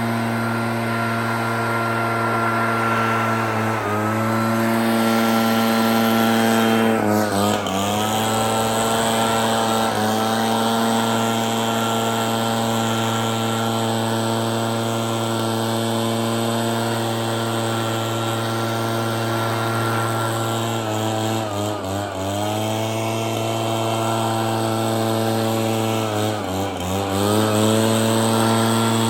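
Echo PB-9010 backpack blower's two-stroke engine running at high throttle, blowing snow. Its pitch briefly dips and recovers about five times as the throttle is eased off and opened again.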